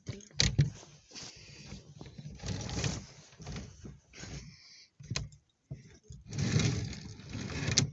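Clothes and hangers being handled in a closet: irregular rustling and scraping with a few sharp clicks and knocks, and longer scraping spells near the middle and near the end.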